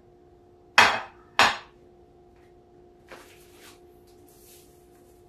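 Two sharp knocks in a kitchen, about two-thirds of a second apart, like cookware or utensils being set down hard, followed by faint rustling, over a faint steady hum.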